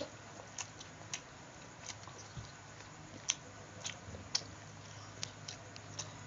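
Close-miked eating sounds: chewing with short, wet mouth clicks and smacks, scattered irregularly about every half second.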